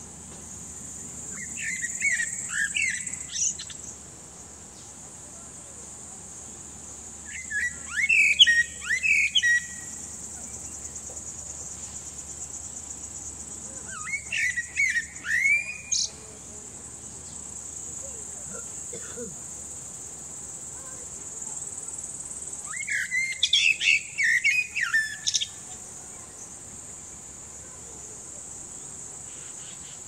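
Male Eurasian blackbird singing: four fluty, warbling phrases of about two seconds each, several seconds apart, with twittery high notes at their ends. A steady high-pitched buzz runs underneath.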